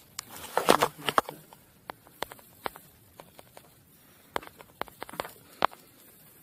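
A short mixed burst of sound in the first second or so, then faint, irregular clicks and knocks.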